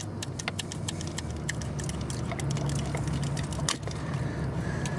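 Hands handling a rubber transmission-cooler hose and its metal hose clamp: a run of irregular small clicks and scrapes over a steady low hum.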